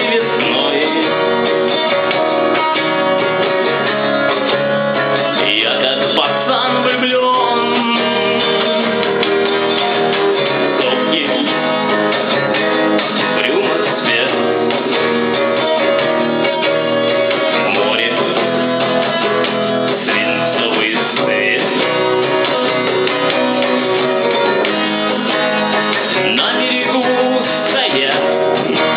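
Music led by a guitar, playing steadily throughout.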